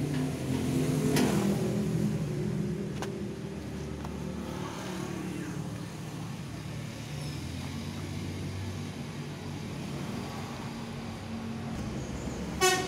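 Steady low motor-like rumble, with a few light clicks and a sharp ringing metallic clink near the end.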